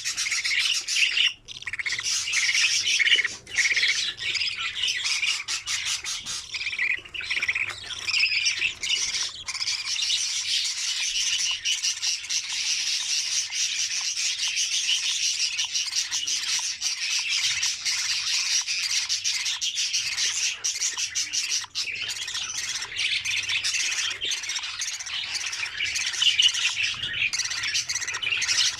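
Budgerigars chattering and squawking continuously, a dense, busy mass of high calls with no pauses.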